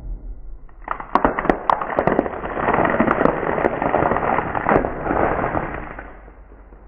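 A car tyre rolling over dry wafer ice cream cones and crushing them. Sharp separate cracks start about a second in, then give way to a dense crunching crackle that fades out near the end.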